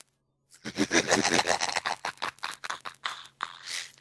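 A voice on a Skype call breaking up into choppy, garbled robotic-sounding digital noise, starting after a brief dropout of about half a second.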